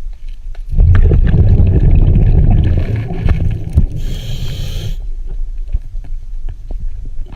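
Scuba diver breathing underwater: a loud, low bubbling rumble of an exhalation, then about four seconds in a short hiss of a breath drawn through the regulator.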